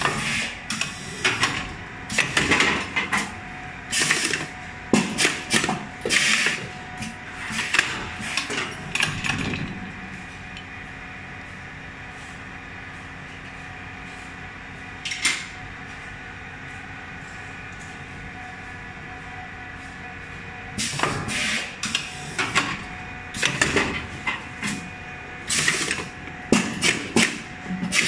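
Lead terminal casting mold machine with a steady hum, broken by two spells of irregular metallic clanks and knocks, one in the first third and another in the last quarter, with a single knock in between.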